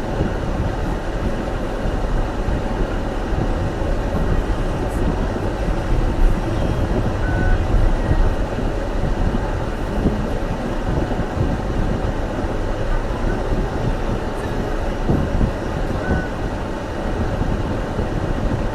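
Steady road noise of a car driving on snowy roads: a continuous low rumble of tyres and engine under an even hiss.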